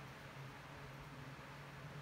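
Faint room tone: a steady hiss with a low, even hum underneath.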